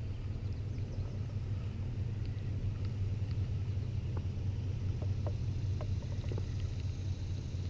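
Steady low rumble of a running motor, with a few faint short ticks over it.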